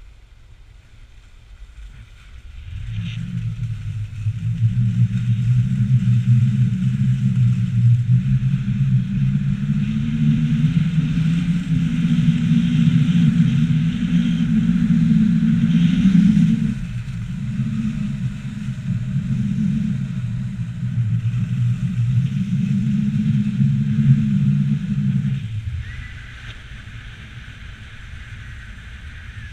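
Skis running and scraping over groomed snow, with wind rushing over the camera's microphone: a loud, steady rumble that builds about three seconds in and drops away about four seconds before the end.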